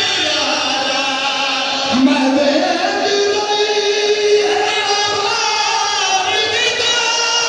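A man chanting a masaib mourning elegy in a melodic, sung style into a microphone, amplified over a hall's public-address system, with long held notes and slow glides in pitch.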